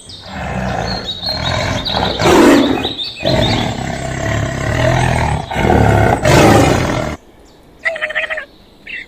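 A large farm animal calling loudly in three long, drawn-out calls, followed by a shorter, fainter call near the end.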